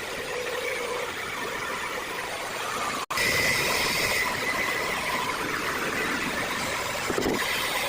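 A power tool running steadily with a faint whine, with a brief dropout about three seconds in.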